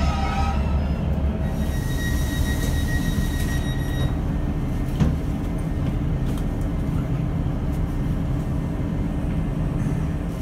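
Onboard a British Rail Class 150 Sprinter diesel multiple unit: its underfloor diesel engine runs with a steady low drone. A thin high whine comes in for a couple of seconds about one and a half seconds in, and a single sharp knock sounds about five seconds in.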